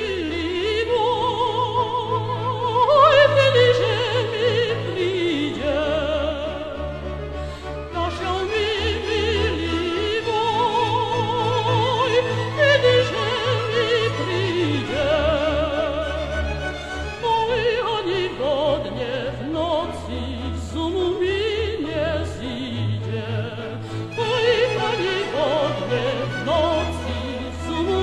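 A woman singing high, held notes in operatic style with a wide vibrato, over sustained orchestral accompaniment.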